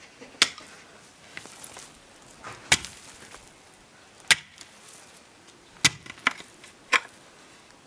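A long-handled hoe chopping into hard-packed soil, six sharp strikes a second or two apart, three of them close together near the end, as the ground is dug over to loosen it.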